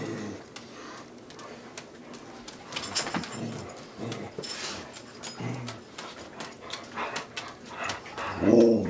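A pet dog whining in short pitched calls, loudest near the end, begging to be fed. Soft clicks of juggling balls landing in hands run underneath.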